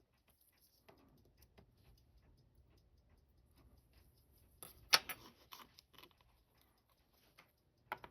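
Small metal watchmaker's tools clicking and tapping on the parts of a Seiko 6119 watch being taken apart: scattered faint ticks, a cluster of sharper clicks about five seconds in, and one more click near the end.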